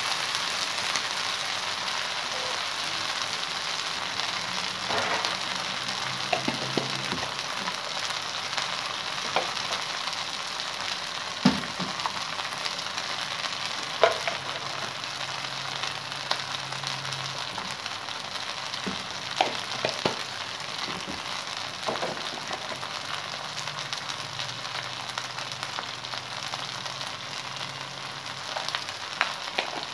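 Minced meat (qeema) frying in oil in a non-stick wok, a steady sizzle, with a few sharp taps along the way.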